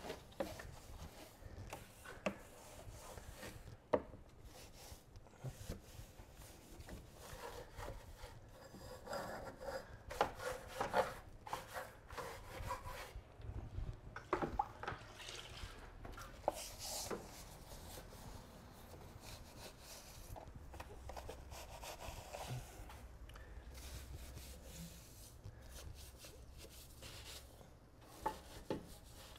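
Faint, intermittent scrubbing strokes of a soft EZ Detail brush working over the wet plastics and parts of an engine bay, with a few light knocks.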